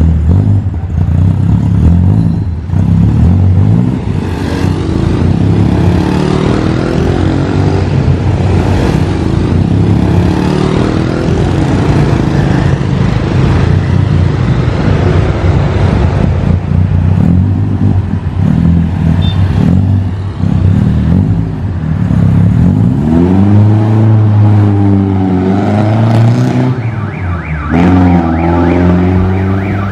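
BMW E36 318i's 1.8-litre four-cylinder engine exhaling through an NDK Pro Twin dual-tip muffler with no resonator, loud as the car pulls away and drives off. Several revs rise and fall in the last few seconds.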